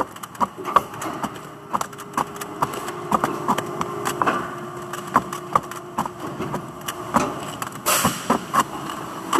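Stacks of thin, nested plastic parts clicking and clattering irregularly as gloved hands handle and shift them, over a steady low hum for much of the time.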